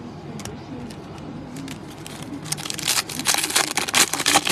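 Foil trading-card pack wrapper being torn open and crinkled by hand. A few light handling clicks come first, then from about halfway through a quick, dense crackling that gets louder toward the end.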